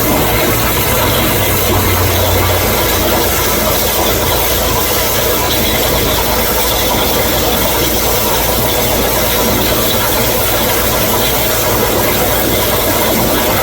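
CNC plasma cutting table's torch cutting steel: a steady, loud hiss over a low machine hum.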